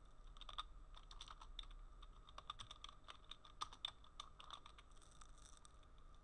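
Faint typing on a computer keyboard: a run of quick, irregular keystrokes, with a low steady hum underneath.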